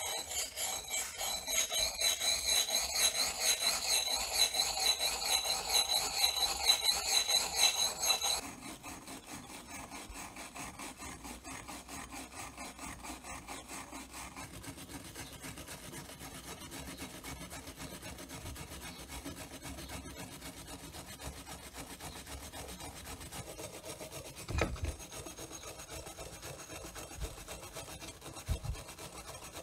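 Rhythmic strokes of a hand tool rubbing across the work: loud, with a ringing edge, for the first eight seconds or so, then quieter and steady. Two short knocks come near the end.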